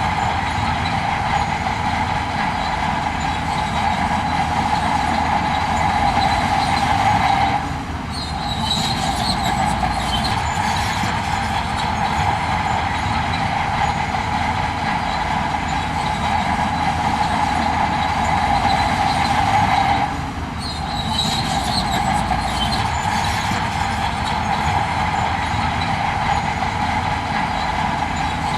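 Heavy diesel earthmoving machinery working, a dense, steady mechanical din with metallic squealing. It drops briefly twice, about eight and twenty seconds in.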